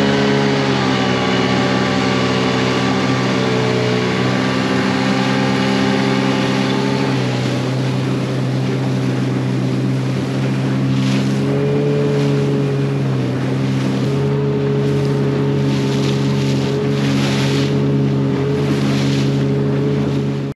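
Outboard motor on an inflatable dinghy running under way across choppy sea, a steady drone that dips slightly in pitch a couple of times, with water rushing past the hull and wind on the microphone.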